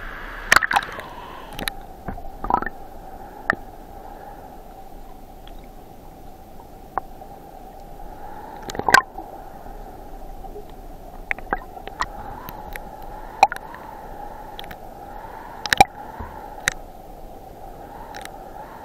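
River current heard through a camera held underwater: a muffled, steady rush with scattered sharp clicks and knocks.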